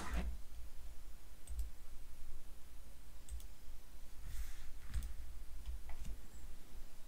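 Music cuts off right at the start, leaving a low room hum with a few faint clicks and a soft rustle about four seconds in.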